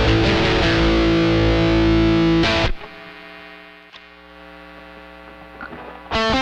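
Distorted electric guitar riff on a Squier Telecaster's stock ceramic bridge pickup through a Tech 21 SansAmp GT2 on high gain, which stops about two and a half seconds in. A much quieter steady hum follows, with a click about four seconds in, and near the end a new distorted riff starts on the Fender Tex-Mex bridge pickup.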